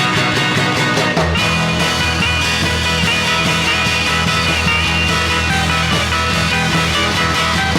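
Instrumental passage of a 1960s garage rock record: the band plays steadily with held chords and no singing.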